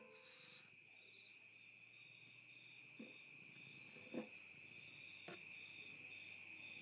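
Faint, steady chirring of crickets, with three soft knocks in the second half as a small glass jar is picked up off the table.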